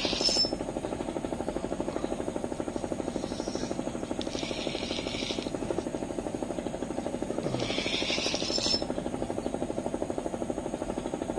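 A small engine running steadily with a fast, even throb. Three short splashy hisses of about a second each come near the start, about five seconds in and about eight seconds in, as a hooked fish thrashes at the surface.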